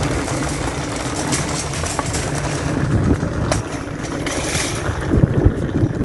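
Small plastic wheels of a toy Henry vacuum cleaner rumbling steadily over rough asphalt as it is dragged along by its hose, with a few heavier low bumps about five seconds in.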